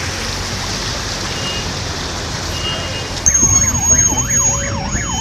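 A steady rushing noise, then, starting abruptly a little past three seconds in, an electronic siren wailing rapidly up and down, about two and a half sweeps a second.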